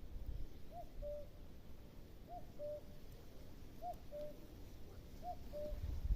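A bird calling a repeated two-note call, a higher note followed by a slightly lower one, about every second and a half, over a low rumble.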